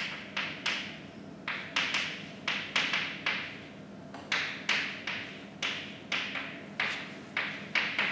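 Chalk writing on a blackboard: an irregular run of sharp taps, about three a second, each trailing off briefly as the chalk is drawn across the board.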